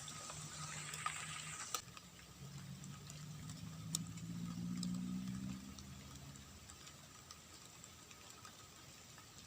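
A faint engine hum that swells to its loudest around the middle and then fades, as a vehicle passes. Thin steady high tones and a few scattered ticks run underneath.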